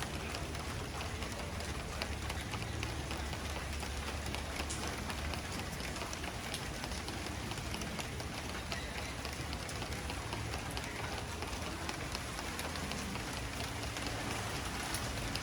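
Steady rain falling, a continuous hiss with many separate drops ticking through it.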